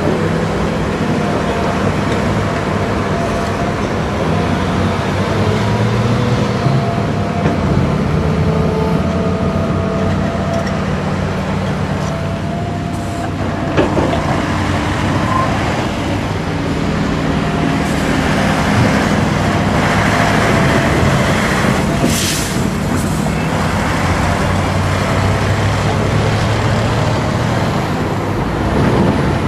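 Diesel engine of a loaded Mercedes-Benz SK tipper truck running steadily as it pulls away, with road traffic passing. A sharp click about halfway through and a short hiss about three-quarters of the way in.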